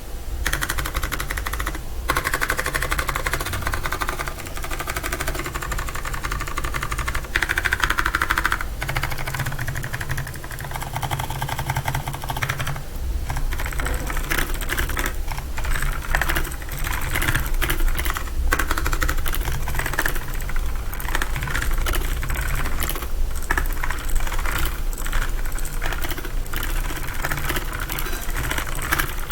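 Rapid, continuous typing on a PICTEK tenkeyless mechanical keyboard with blue switches: a dense run of clicky keystrokes, with a couple of brief pauses.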